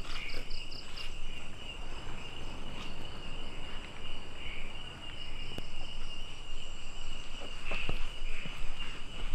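Night insects trilling steadily in one high continuous note. There is a short run of quick pulsed chirps about half a second in, and a few soft clicks here and there.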